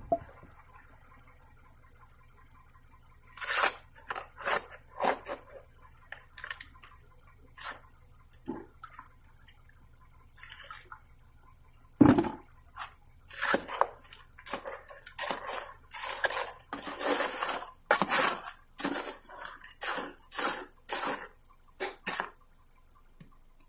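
Steel trowel scraping and slapping wet sand-cement mortar against the sides of a metal basin as it is mixed by hand, in short, irregular strokes that begin a few seconds in. There is a sharp knock about twelve seconds in.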